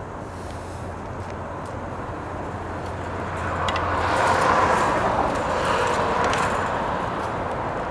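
Street traffic: a vehicle passes, its noise swelling about three to four seconds in and staying loud to the end, over a low steady hum.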